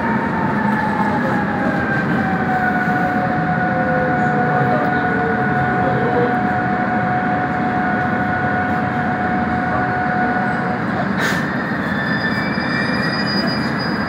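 Korail Class 351000 electric train braking into an underground station, heard from inside the car: wheels rumbling on the rails under the whine of the traction inverter, which falls in pitch and then holds steady. About eleven seconds in the whine cuts out with a sharp click, and a thin high brake squeal follows as the train comes to a stop.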